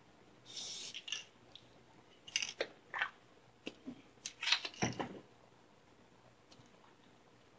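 A short spray hiss, then a scattering of small clicks, crackles and rustles from foam pieces being handled and pressed together.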